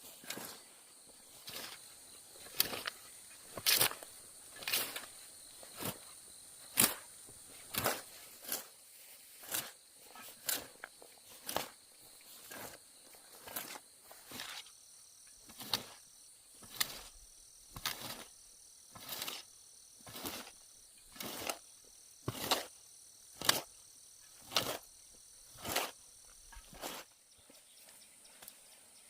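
Repeated sharp strikes, about one a second, that stop near the end, over a steady high insect drone.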